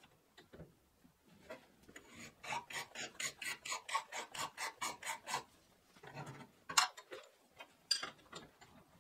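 A hand tool scraping back and forth on steel in quick, even strokes, about four a second for some three seconds, then two sharp knocks.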